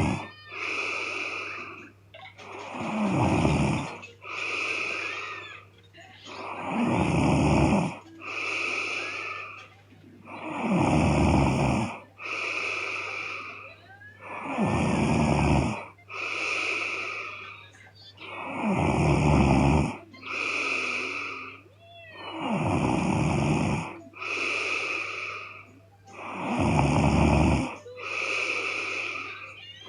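A sleeping woman snoring in a steady rhythm, a breath about every four seconds: each loud snore is followed by a softer, breathy exhale.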